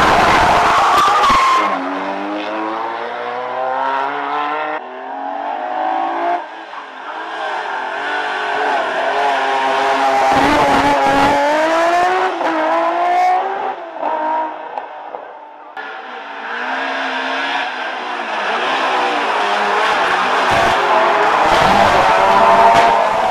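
Race-prepared hillclimb cars at full throttle, one after another: a Ford Sierra, then a BMW M3, then Ford Escords. Their engines rev up through the gears, with a short drop in pitch at each shift. Tyres squeal in the first couple of seconds as a car powers out of a hairpin.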